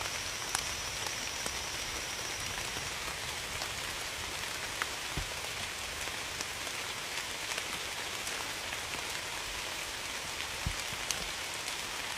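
Steady rain falling, an even hiss with scattered close drip ticks and a few dull low thuds of drops landing.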